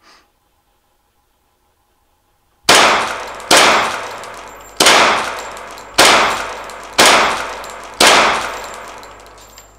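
Six pistol shots, each a sharp crack followed by a long ringing decay, fired roughly a second apart starting a little under three seconds in. A faint click sounds right at the start.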